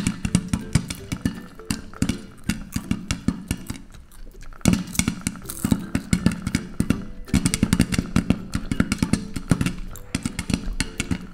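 Popcorn kernels popping in oil inside a covered pot with a glass lid: rapid, irregular pops that thin out briefly about four seconds in, then pick up again. Light guitar background music plays underneath.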